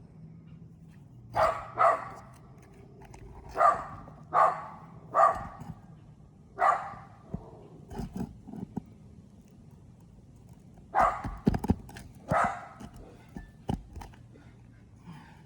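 A dog barking in short single barks, about eight of them in clusters of two or three with pauses between. A few sharp taps or knocks fall between the barks.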